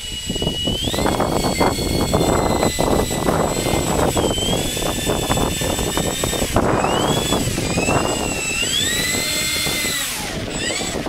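Electric motors and propellers of a radio-controlled four-engined C-130 Hercules model running as it taxis on grass, a high whine whose pitch goes up and down with the throttle several times and drops away sharply near the end.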